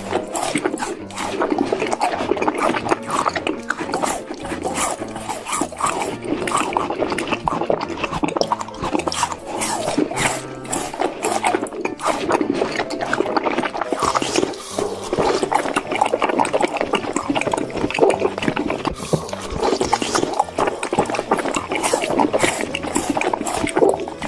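Close-miked ASMR eating sounds: wet chewing and crunching of ice cream bars, a rapid run of mouth clicks and smacks.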